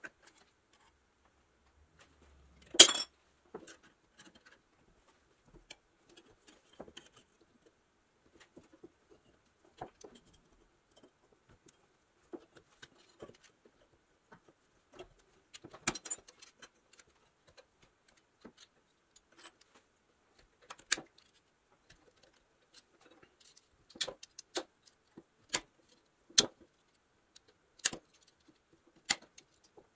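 Small parts and tools being handled on a workbench: scattered sharp clicks and light clinks, a loud one about three seconds in and more frequent ones near the end.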